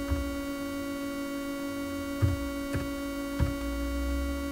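Steady electrical mains hum with a stack of even tones running throughout. About four short keyboard key clicks come through as the words are typed, one at the start and three between about two and three and a half seconds in.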